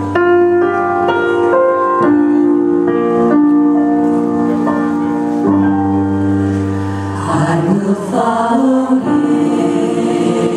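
Music: slow, held keyboard chords, with singing voices coming in about seven seconds in, in a gospel choir style.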